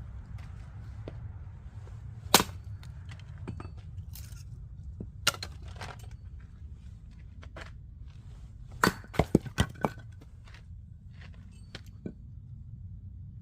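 Oak firewood cracking and snapping as it is broken apart: a loud sharp crack about two seconds in, another a few seconds later, and a quick run of about four cracks near the nine-second mark, over a steady low rumble.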